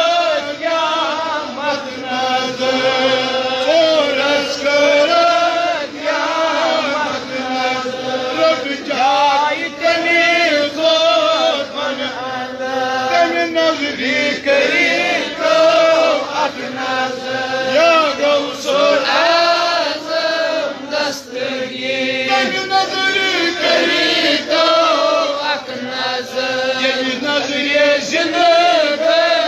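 A man chanting an Islamic devotional verse in a melodic, wavering voice, amplified through a microphone.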